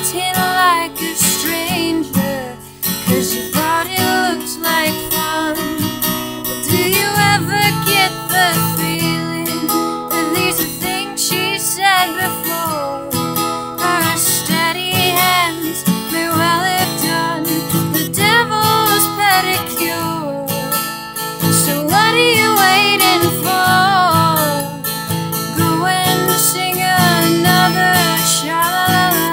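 A young woman singing solo with her own acoustic guitar accompaniment: a sung melody over steadily played chords.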